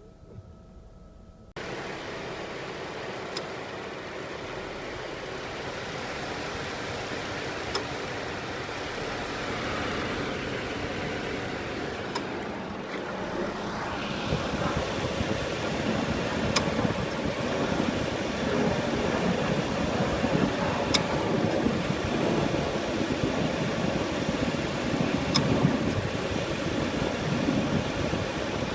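2013 Ford Explorer engine idling with the air conditioning on, an idle the owner calls rough with the A/C cycling. The sound comes in abruptly about a second and a half in, then grows louder and rougher from about halfway, with a sharp tick every four or five seconds.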